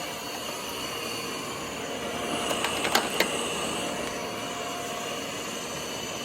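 Ecovacs Deebot N8 Pro+ robot vacuum running with a steady whir, its suction motor growing louder a couple of seconds in as it boosts suction on a mat. A few sharp clicks come in the middle as small debris is sucked up.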